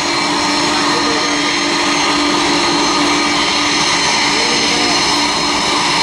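Boeing 747-400's four jet engines running at high power on the takeoff roll: a steady, loud rush of engine noise with several whining tones held throughout.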